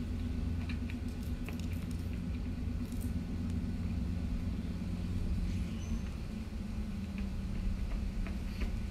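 Steady low outdoor rumble with a faint hum, and a few faint scattered ticks.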